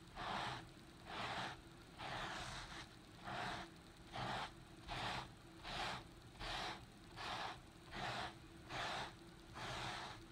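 Rubber-gloved hands scrubbing foamy carpet cleaner into a carpet mat: rhythmic back-and-forth rubbing strokes with a wet, hissing scrape, a little more than one stroke a second.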